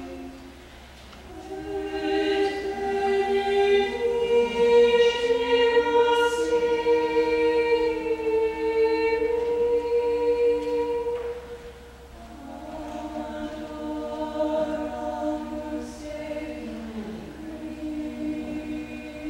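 Small choir of women's voices singing a Latin sacred motet in slow, long-held chords. The singing drops back briefly about halfway through before the next phrase begins.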